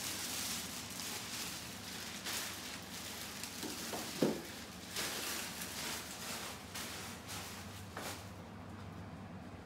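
Rustling and handling noises from the packaging as the unboxed portable chiller is handled, with a brief squeak about four seconds in.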